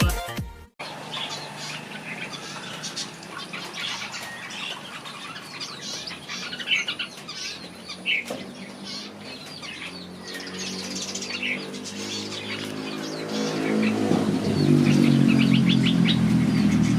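Red-whiskered bulbuls chirping in an aviary, short scattered calls throughout. From about ten seconds in, a low droning hum with a steady pitch rises under the calls and becomes the loudest sound near the end.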